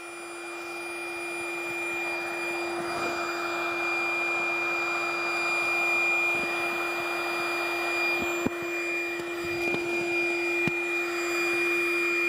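Electric compressor air pump running with a steady whine and a rush of air as it inflates the air chambers of an inflatable boat toward their set pressure. It grows louder over the first couple of seconds, then holds at one pitch.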